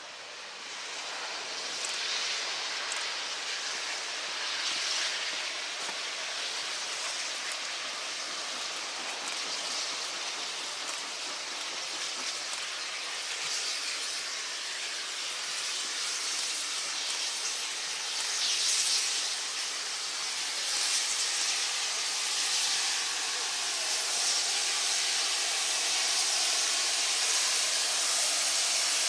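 Steam locomotive letting off steam: a loud, steady hiss that swells over the first couple of seconds, with a few brief surges, and grows slightly louder near the end.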